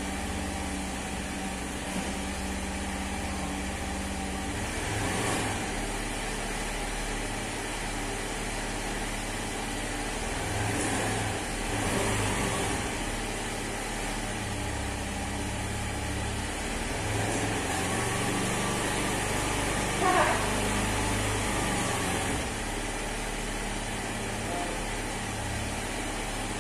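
Honda Scoopy 2013 scooter's single-cylinder engine idling steadily while warming up from a cold start, with its speed swelling a little a few times. A brief sharp noise stands out about twenty seconds in.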